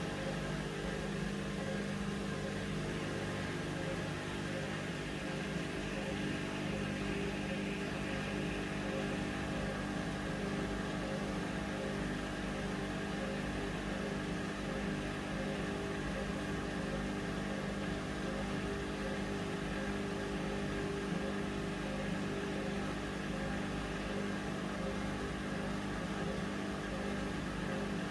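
Hoover Vision Dynamic washing machine running, its drum motor giving a steady hum at an unchanging speed.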